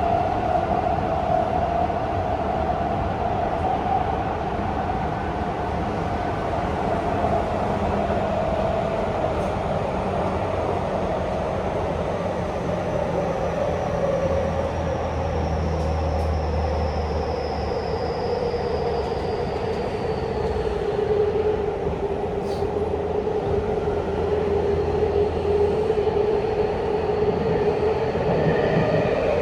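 Tokyu 5050 series electric train running, with a steady rumble of wheels on rail under the whine of its inverter and traction motors. The whine glides slowly down in pitch as the train slows, then holds steady near the end.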